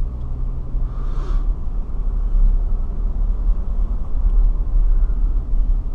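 Car driving along, a steady low rumble of engine and tyres on the road, with a brief hiss about a second in.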